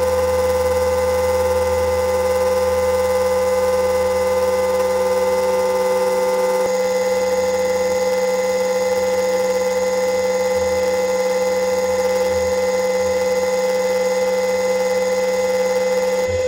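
Electric RC helicopter's motor and drivetrain whining at a steady pitch, heard close up from its onboard camera. The mix of tones changes slightly about seven seconds in.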